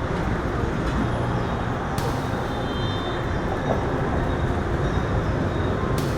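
Steady street traffic noise, with a sharp click about two seconds in and another near the end.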